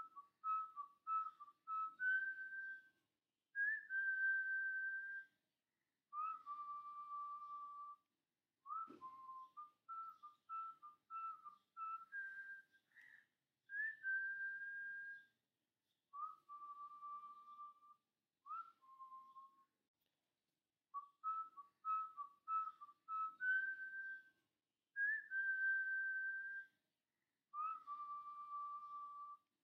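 Background music: a melody whistled one note at a time, runs of short quick notes alternating with longer held notes, in phrases with short pauses between them that repeat through the tune.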